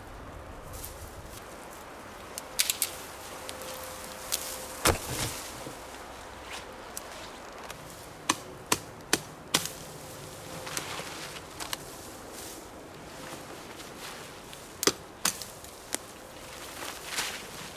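A machete chopping through pine branches: sharp, irregular chops, some in quick runs of two to four, with the rustle of branches and needles being pulled aside in between.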